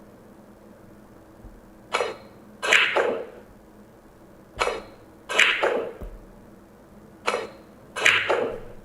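Pool-ball sound effect playing back: three times, a sharp single knock followed about half a second later by a longer clatter of balls colliding.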